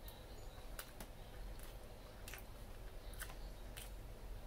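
Faint, wet mouth clicks of a person chewing a mouthful of cherry torte (sponge cake, buttercream and a cherry), scattered soft clicks every half second or so.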